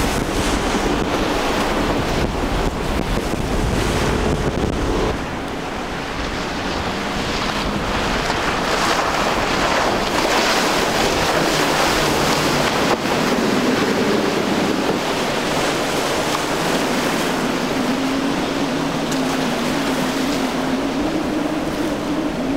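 Outboard boats running fast through an inlet: engine drone over the rush of wake spray and waves, with wind buffeting the microphone for about the first five seconds. In the second half a steady engine note from twin Mercury 225 hp outboards comes through.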